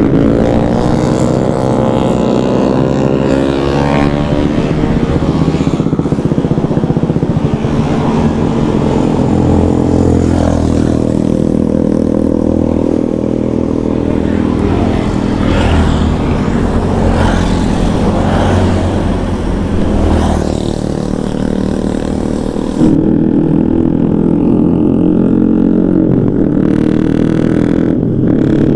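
Motorcycle engines running while riding, rising and falling in pitch as the throttle is opened and closed; the sound changes abruptly about 23 seconds in.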